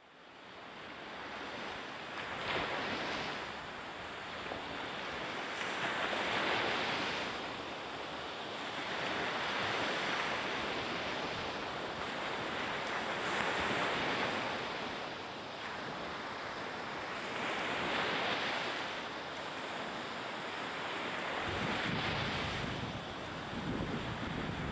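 Sea waves washing in, each surge swelling and fading about every four seconds, over a steady hiss of wind.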